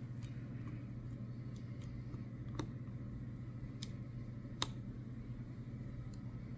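Sparse light clicks of a hook pick working the security pins of a Master Lock 6835 padlock held under tension, three sharper clicks in the middle, over a steady low hum.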